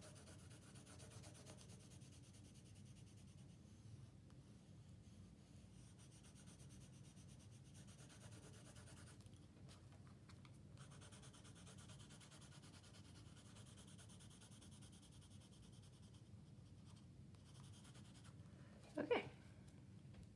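Faint scratching of a blue colored pencil on drawing paper, shading with the side of the lead for even coverage. A brief louder sound near the end.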